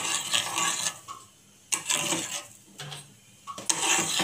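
Metal spoon stirring sugar into milk in a saucepan, scraping and clinking against the pan. The stirring stops for about two and a half seconds in the middle, leaving a few isolated clicks, then starts again near the end.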